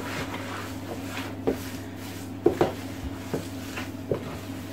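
Gloved hands kneading wet minced-pork chorizo mix in a plastic tub: irregular soft squelches and knocks, about half a dozen spread through, over a steady low background hum.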